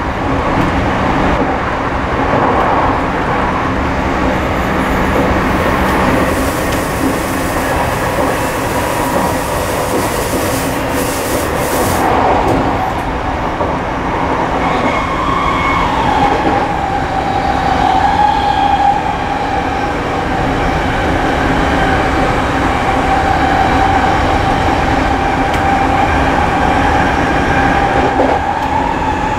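Running noise inside an Odakyu 5000 series commuter train car: steady wheel-on-rail rumble with some clicking over rail joints. About halfway through a steady whine comes in and holds to the end.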